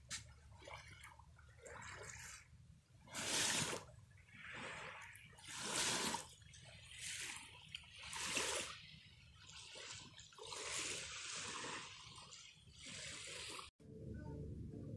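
Small waves washing onto a sandy beach: a run of irregular rushing swells, each about a second long. Near the end the sound cuts out for an instant and a steadier, lower sound takes over.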